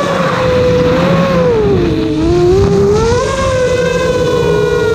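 RC plane's motor and propeller whining close to the onboard camera, its pitch sinking about two seconds in and climbing back as the throttle is eased and opened again, over a steady rush of air.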